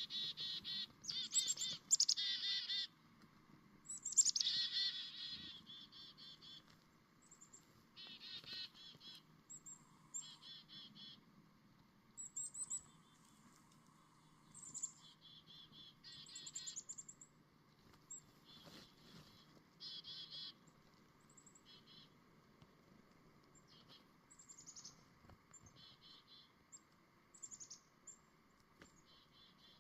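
Chickadees calling over and over: each call is one or two high thin notes followed by a buzzy run of lower notes, like a chick-a-dee-dee-dee call. The calls are loudest and most crowded in the first few seconds, then come sparser. A faint steady low hum runs underneath.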